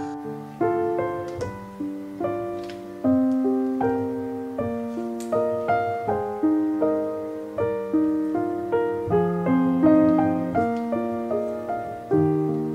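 Background music: a gentle piano piece of struck notes and soft chords, each note fading away.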